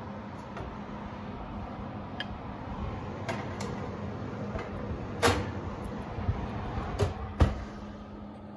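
Metal cake tins being set on an oven's wire rack and the oven door being shut: a handful of sharp clanks and knocks, the loudest about five seconds in and again near seven and a half seconds, over steady background noise.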